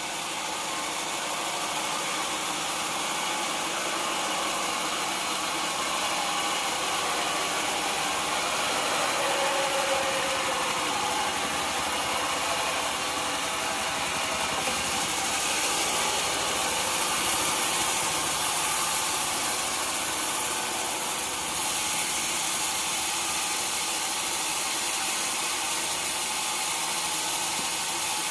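Sawmill machinery running steadily, a constant mechanical noise with a strong high hiss that steps up in level a little past halfway.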